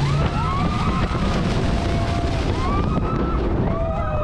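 Wind buffeting the microphone on a moving water-coaster boat ride. Over it come several high cries that rise and fall, like riders screaming, one near the start, one midway and one near the end.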